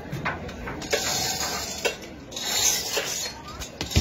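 Rain hiss that swells and fades, with scattered sharp knocks and clanks from equipment being handled as the stage gear is taken down.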